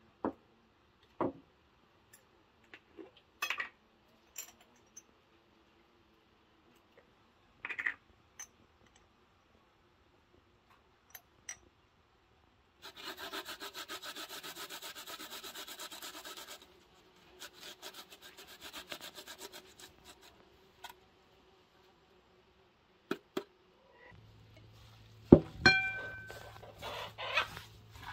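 Garlic being grated on a stainless-steel box grater: two runs of fast, even rasping strokes, with scattered small clicks and taps around them. A sharp knock near the end is the loudest sound.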